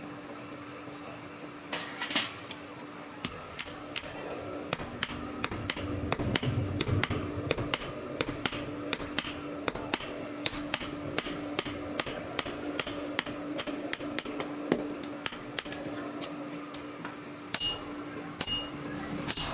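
Hand hammer striking metal over and over, as in forging a knife blade: a few scattered blows at first, then about two to three strikes a second from about four seconds in, over a steady hum.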